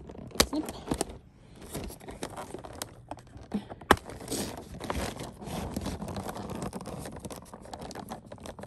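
Scissors snipping at a doll's box packaging, with cardboard and plastic rustling and scraping as the doll is worked loose. A few sharp clicks stand out, the loudest about four seconds in.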